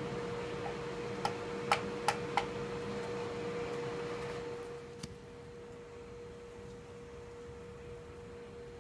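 Light metallic clicks of a red-hot forged axe head in tongs touching a speaker magnet, four in about a second, then one more a few seconds later. This is the blacksmith's magnet test of whether the steel has lost its magnetism and is hot enough to quench. A steady, pure, fairly high hum runs throughout.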